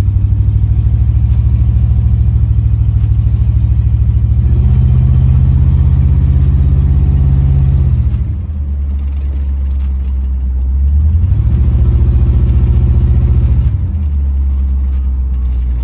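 Car engine and exhaust running with a loud, low drone. Twice it is revved up to a higher pitch, held there for a few seconds, then let back down.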